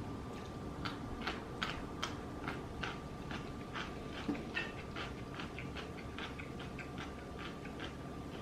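A person chewing food close to the microphone, with irregular short mouth clicks a few times a second.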